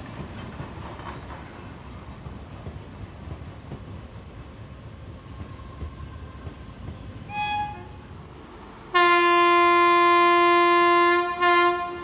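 Passenger coaches rolling past with a steady low rumble of wheels on rails. About seven seconds in a short higher toot sounds, then a loud locomotive horn gives one steady blast of about two seconds, followed by a short second toot.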